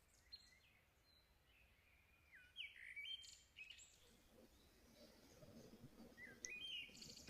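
Near silence with faint bird chirps: a few short falling whistles about two and a half seconds in, and again near the end.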